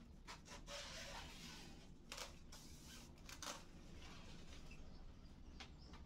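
Faint rustling and swishing of a washing machine's fabric cover being pulled off, with a few brief louder swishes a couple of seconds in and again about halfway.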